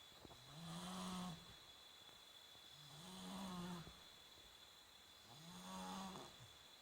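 Snoring at a slow, even rhythm: three pitched, rasping snores about two and a half seconds apart, each rising in pitch and then holding for about a second.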